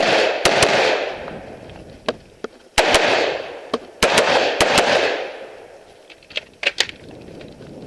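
AR-15 rifle firing .223/5.56 in quick pairs and strings of several shots, each shot trailing a long echo. Three fainter shots come near the end.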